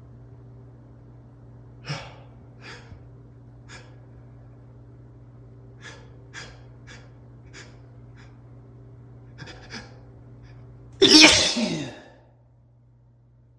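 A man sneezing: several short, sharp breaths in while he tries to hold the sneeze back, then about eleven seconds in one loud sneeze that breaks through.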